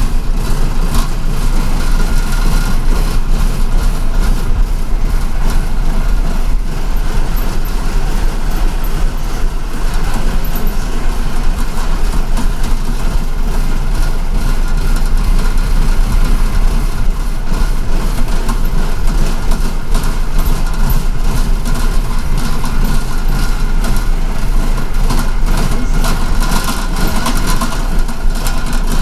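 Steady engine and road rumble of a city bus, heard from inside the cabin, with a strong deep drone underneath.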